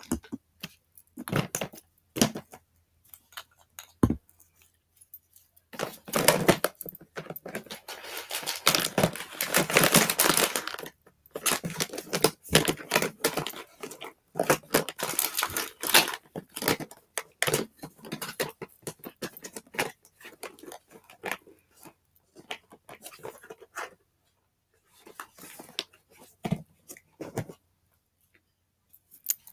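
Rustling, crinkling and scattered clicks and knocks from items being handled, with a long, louder stretch of rustling partway through that thins out to occasional clicks near the end.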